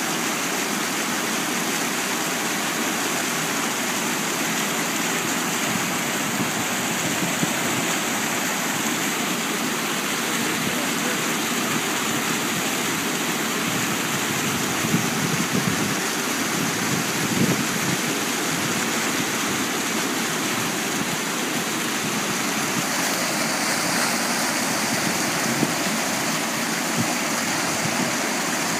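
Fast white water rushing and churning past a concrete wall, a steady loud, even rush of water.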